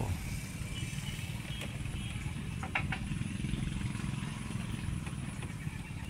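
Steady low rumble of a running engine, with a couple of brief high chirps near the middle.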